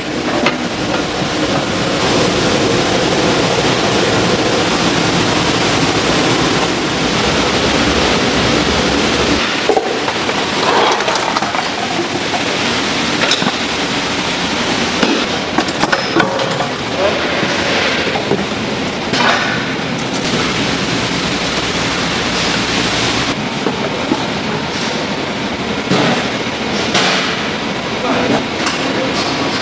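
Food-factory production-line machinery running with a dense, steady mechanical noise and frequent clattering and knocking. The machine noise changes abruptly twice, about ten seconds in and again about twenty-three seconds in.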